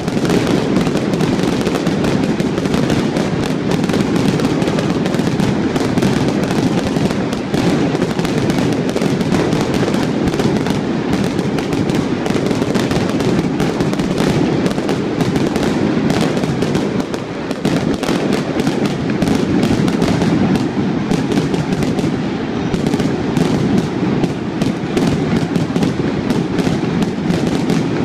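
Fireworks display going off in a dense, continuous barrage of rapid bangs and crackling, with no pause.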